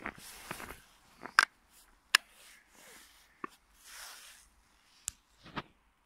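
Footsteps crunching through snow at an uneven pace, with a few sharp clicks among them.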